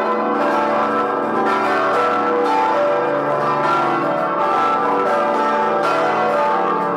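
Church bells of the Vilnius Cathedral belfry ringing a full peal: several large bronze bells struck in quick succession, their tones overlapping and ringing on without a break.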